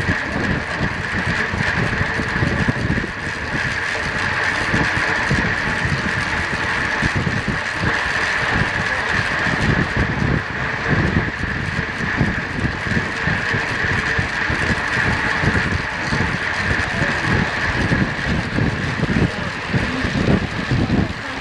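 Wind rushing and buffeting over the microphone of a camera riding on a track bike at about 28 mph, with a steady high-pitched hum running through it.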